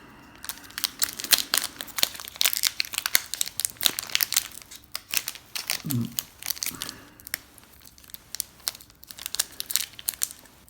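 Foil wrapper of a Pokémon trading card booster pack crinkling and crackling as it is handled and torn open.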